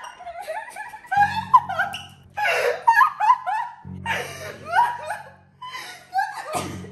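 Women laughing hard, with background music coming in about a second in.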